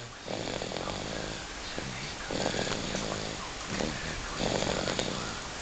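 A five-month-old baby snoring: three loud snores about two seconds apart.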